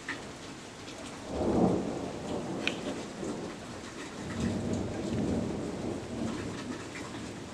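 Thunder rumbling through steady rain: a loud peal rises about a second in, and a second, longer rumble follows midway, while rain patters and drips on nearby surfaces.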